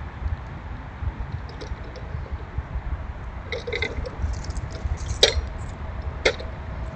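Squirrels scrambling about a seed-strewn feeding spot right at the microphone: a steady low rumble with faint scattered ticks, a short run of chirps about three and a half seconds in, then two sharp clicks about a second apart, the first the loudest.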